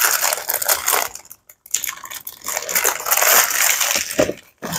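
Crackling plastic of an Indomie Mi Goreng instant-noodle packet being handled and emptied into a plastic bowl. Dry noodles and seasoning sachets slide out, with a short pause about a second and a half in.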